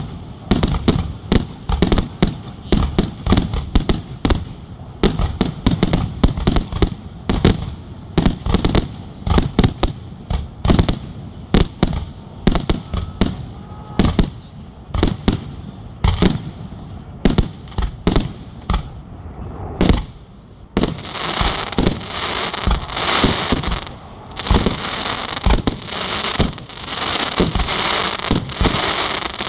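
Aerial firework shells launching and bursting in a rapid series of loud bangs, about one to two a second. About two-thirds of the way through, a dense, steady crackling takes over, with bangs still breaking through it.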